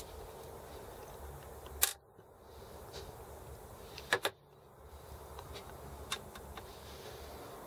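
Small steel internal parts of a Sturmey-Archer S5C hub clicking and clinking as they are handled and set down on the bench. There is a sharp click about two seconds in, a quick double click a little after four seconds, and a few lighter ticks.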